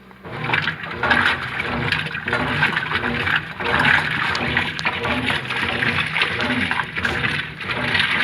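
Brastemp Ative 11kg top-loading washing machine agitating its load: water churning and sloshing, with the agitator motor pulsing back and forth in a steady rhythm a little under a second per stroke. It starts suddenly just after the beginning.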